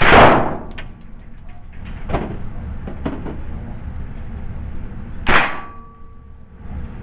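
Rifle shots from an AR-style rifle on an indoor range: a loud shot at the start and another about five seconds in, each trailing off in the range's echo, with two fainter shots between them.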